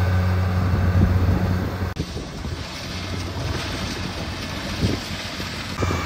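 Rice combine harvester's engine running with a steady low drone. About two seconds in, the sound cuts abruptly to a fainter engine hum, with wind on the microphone.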